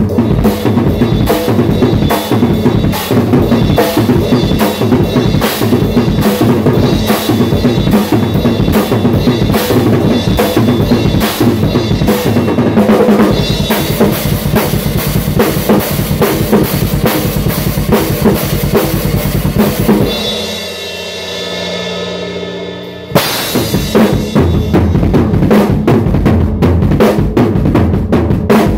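Acoustic drum kit played with sticks: a fast, driving pattern of bass drum, snare and cymbals. About two-thirds of the way through, the drumming stops for around two and a half seconds, leaving a quieter held sound, then comes back in.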